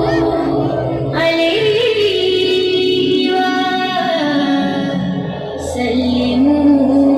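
A song sung by a single melodic voice, with ornamented gliding phrases and long held notes, over a steady low accompaniment.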